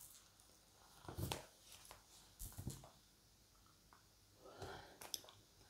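Near silence: room tone with a few faint, brief rustles and clicks, about a second in, halfway through and near the end.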